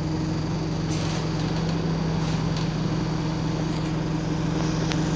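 Bus engine and drivetrain running steadily, heard from inside the passenger cabin as an even low hum, with a few faint clicks or rattles.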